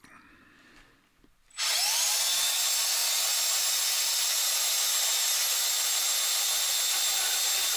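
Battery-powered 18 V portable bandsaw switched on about a second and a half in: its motor spins up briefly, then runs with a steady high-pitched whir.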